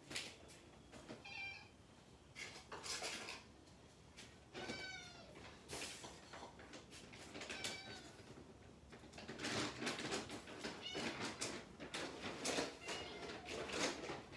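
Stray black cats meow three times in the first eight seconds. Then comes a quick run of rustling and clicking as a plastic bag of dry cat food is handled and the food is taken out.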